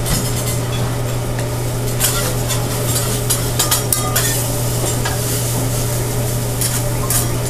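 Food sizzling on a steel teppanyaki griddle while a metal spatula scrapes and clacks against the flat-top, with bunches of sharp strikes from about two to four seconds in and again near the end, over a steady low hum.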